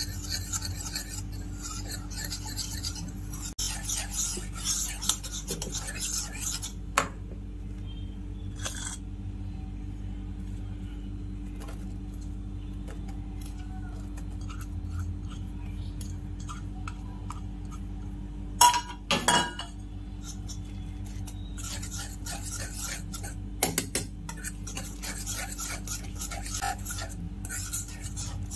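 A metal whisk stirs and scrapes a thick flour batter around a steel kadai, clinking against the metal. The stirring goes quiet for a while in the middle, then comes a few sharp knocks of the utensil on the pan's rim before the stirring starts again. A steady low hum runs underneath.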